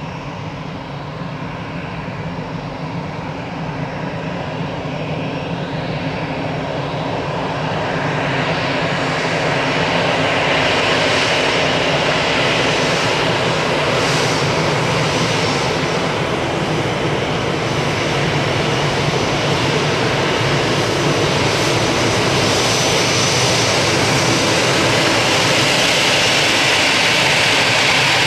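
Airbus A320-214's twin CFM56 turbofan engines running at taxi thrust as the airliner taxies. A steady rumble and whine grows louder over the first ten seconds or so, then holds.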